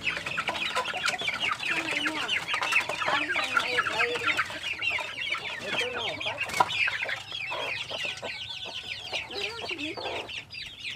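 A flock of penned chickens clucking and calling over one another, many short calls at once, busiest in the first half and thinning toward the end. A single sharp click comes about six and a half seconds in.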